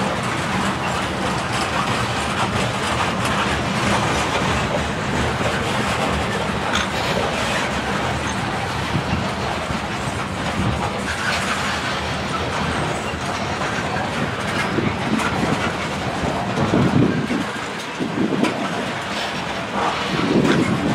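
Covered hopper cars of a freight train rolling past close by: a steady rumble and rattle of steel wheels on rail, with clickety-clack as the wheels cross rail joints, heavier toward the end.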